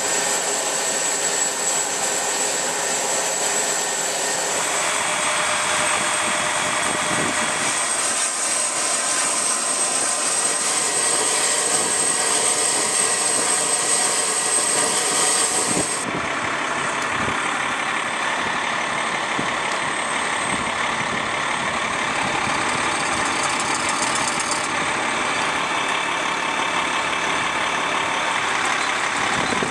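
Aircraft refuelling equipment, a fuel truck's engine and pump running steadily at idle. A steady high whine rides over the first half and drops away abruptly about halfway through.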